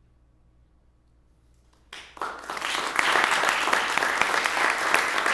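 Hush of about two seconds, then an audience bursts into applause, quickly swelling to steady, dense clapping.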